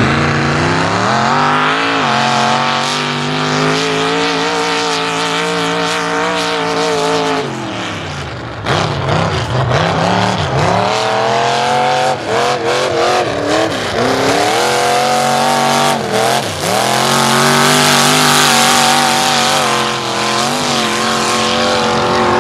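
Mud truck's engine revving hard as it spins its big tires through the dirt: it climbs at the start and holds high for several seconds, drops off about eight seconds in, then revs up and down sharply several times before another long high pull near the end.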